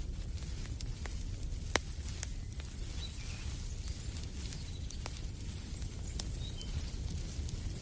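Wood fire crackling in a fireplace: a steady low rumble of burning with scattered sharp pops and ticks, one louder pop about two seconds in. A few faint short bird chirps sound behind it.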